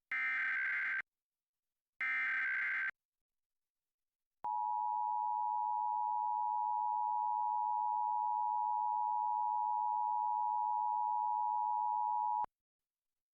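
Emergency Alert System tones: two one-second bursts of the SAME digital header, a harsh screeching data signal, then the steady two-tone EAS Attention Signal (853 and 960 Hz sounded together), held about eight seconds and cutting off sharply.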